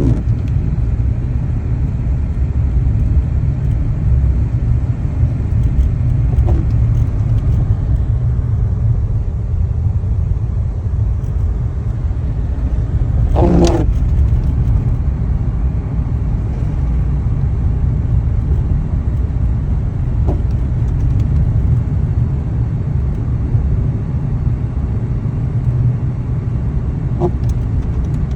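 Car driving, a steady low rumble of engine and road noise, with a brief pitched sound about halfway through.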